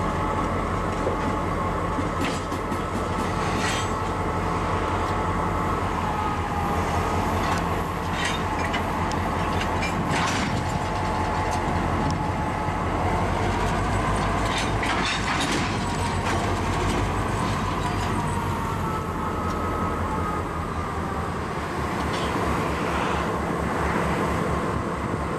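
Diesel locomotive of the Angelina & Neches River Railroad running at low speed while it moves a cut of tank cars, with a steady high whine that wavers in pitch. Scattered sharp clicks and clanks come from the wheels and couplers, and a slow low throb sets in near the end.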